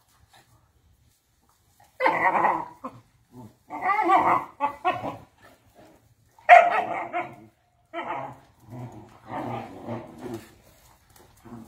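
Dogs play-fighting, a poodle and a Doberman: repeated bursts of growling and barking starting about two seconds in, the loudest about two-thirds of the way through.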